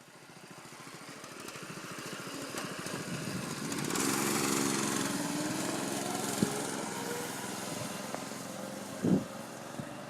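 Small single-cylinder engine of a home-built mini bike (7 hp, 212cc Predator) running. It grows louder over the first four seconds, then slowly fades, with a couple of short knocks near the end.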